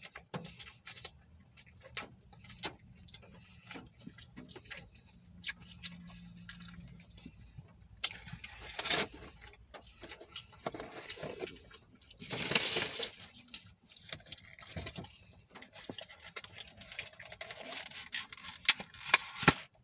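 Close-up eating sounds: chewing and lip smacking of a mouthful of food, with many small scattered clicks. A few short rustling noises, each about a second long, come from handling food containers.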